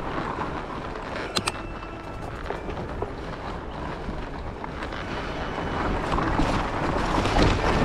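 Wind rushing over the microphone and fat-bike tyres rolling over a dirt singletrack, with two sharp clicks about a second and a half in. The noise grows louder toward the end.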